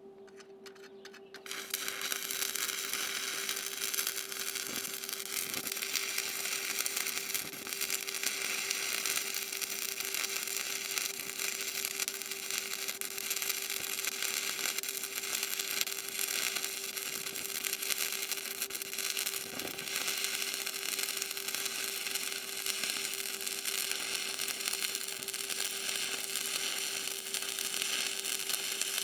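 Arc welding on steel: a steady crackling, sizzling arc that strikes about a second and a half in and runs on without a break, over a constant low hum.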